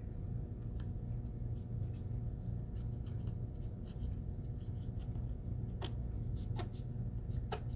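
Metal embossing stylus rubbing and scratching over aluminum duct tape stretched on raised sign letters, worked dry without oil so the ball tip drags on the tape. A few sharper clicks come in the last two seconds, all over a steady low hum.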